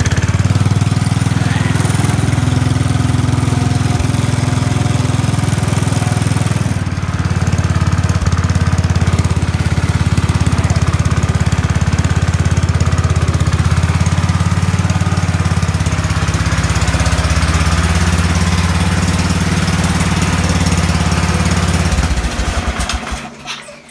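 1969 Sears SS12 garden tractor's single-cylinder engine running steadily while the tractor drives. Near the end it is switched off and chugs through its last few strokes to a stop.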